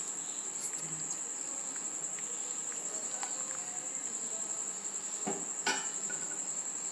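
A steady high-pitched insect trill, with a few light clicks of a metal spoon against the pan as it stirs simmering milk; the clearest two clicks come about five seconds in.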